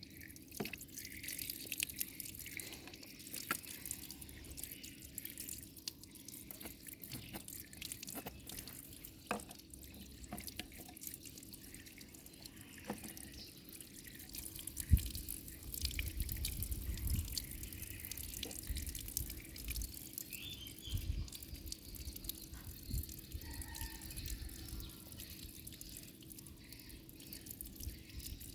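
Water dripping and splashing in irregular small drips, with a run of low thuds about halfway through.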